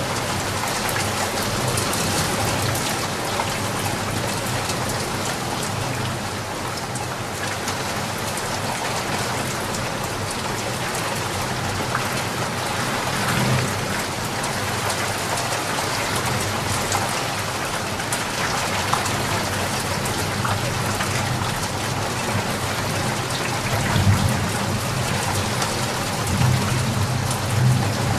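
Steady, dense rain falling, with a few brief low rumbles rising above it, the strongest about two-thirds of the way through and again near the end.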